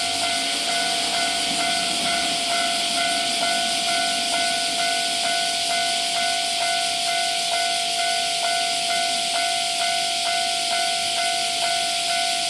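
Japanese level-crossing warning bell ringing, a steady repeating electronic ding at about two strokes a second, over a steady high hiss.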